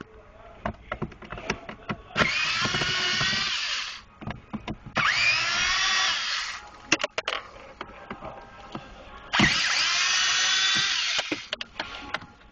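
Cordless electric screwdriver backing out the glove box screws: three runs of about two seconds each, the motor whine rising in pitch as each one spins up. Short clicks and knocks come between the runs.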